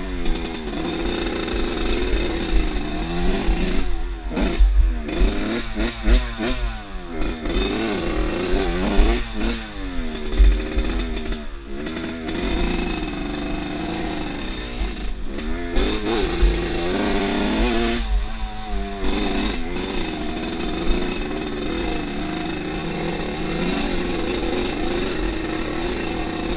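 Off-road motorcycle engine revving up and dropping back again and again as the bike is ridden, then holding a steadier speed near the end.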